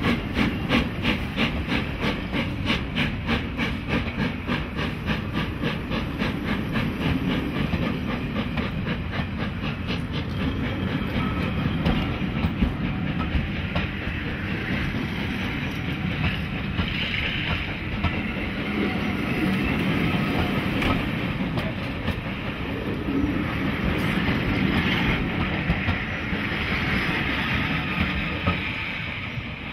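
A steam-hauled passenger train passing close by, hauled by GWR Manor 4-6-0 7828 Odney Manor. The locomotive's rhythmic exhaust beats fade away over the first ten seconds or so as it pulls ahead. The coaches' wheels keep up a steady rumble with clicks over the rail joints, easing near the end as the last coach passes.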